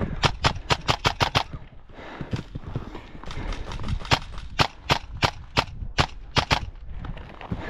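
Airsoft rifle fire: a fast string of about seven shots in the first second and a half, then single shots and quick pairs spread through the next five seconds, with footfalls on dry ground between.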